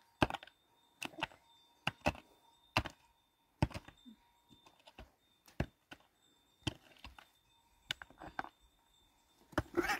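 A series of short, sharp knocks, about one a second, some coming in quick pairs.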